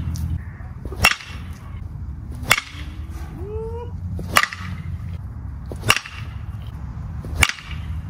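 Aluminum BBCOR baseball bats striking balls: five sharp hits about a second and a half apart over a steady low hum. The first two come from a Stinger Missile 2 and the last three from a Stinger Missile 3, played one after the other to compare their sound.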